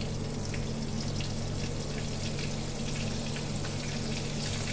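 Flour-coated beef pieces frying in oil that is not yet fully hot: a steady bubbling sizzle with fine crackles, over a low steady hum.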